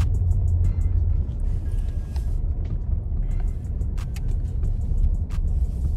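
Low steady rumble of a pickup truck driving, heard from inside the cab, with a music beat's regular high ticks playing over it.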